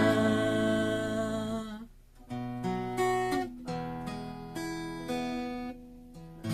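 Acoustic guitar playing slow chords, each left to ring and fade away, with a near pause about two seconds in before the next chords come in.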